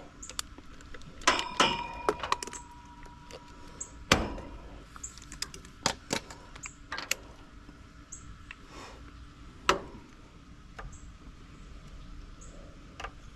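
Scattered metallic clicks, clinks and knocks as a multimeter's test leads and tools are handled at an air-conditioning unit while checking that the power is off. One strike rings like a small bell about a second and a half in; the sharpest knock comes about four seconds in, with more near six and ten seconds.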